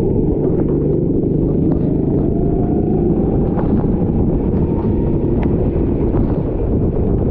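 Rental racing kart running, a dense steady low rumble of engine and air noise. A faint whine climbs slowly in pitch from about a second and a half in to about five seconds.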